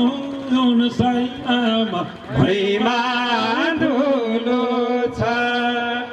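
A man singing a Nepali folk song, drawing out long held notes with short breaks between phrases.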